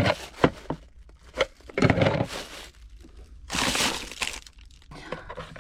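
Crackling, rustling handling noise with scattered sharp clicks and knocks, and two longer rasping bursts about two and four seconds in.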